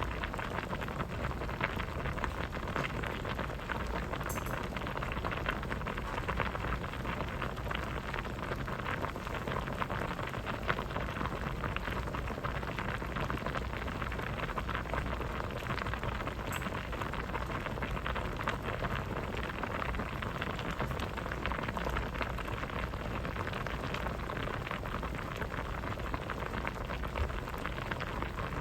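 Pot of vegetable soup boiling: a steady, dense bubbling made of many small pops.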